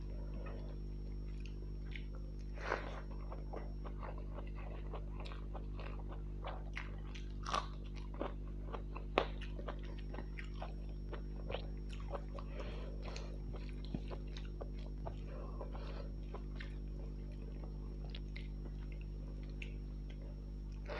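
Close-up chewing and wet mouth sounds of a person eating rice with fish curry: irregular smacks and small clicks, a few sharper ones, over a steady low hum.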